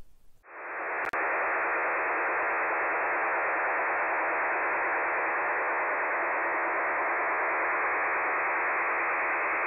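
A STANAG 4285 NATO HF data-modem transmission received in upper sideband on a shortwave receiver: a steady, even rushing hiss with no pauses or rhythm, starting about half a second in, with a brief click about a second in.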